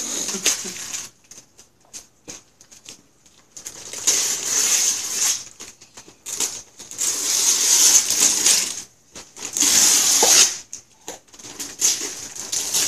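Christmas wrapping paper being ripped off a large gift box: several long tearing rips in the second half, the longest about two seconds, with shorter crackles and rustles of paper between.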